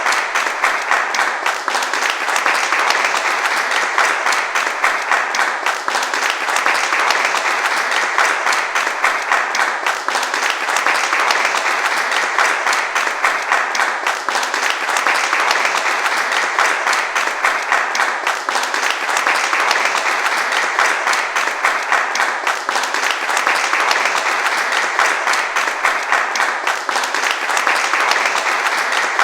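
A crowd applauding: many hands clapping in a dense, steady wash that holds without a break.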